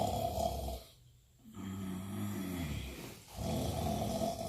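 A man snoring in a steady rhythm: a rattly snore, a short pause, then a lower, humming breath, and the rattly snore again about three seconds after the first.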